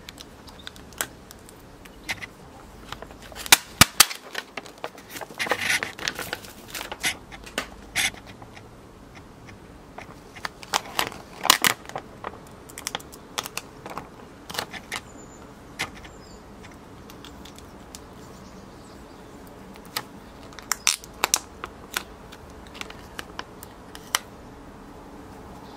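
Stiff black vinyl wrap film crinkling and crackling as it is handled and pressed around a motorcycle fork tube: irregular sharp crackles in clusters, with a quieter stretch past the middle.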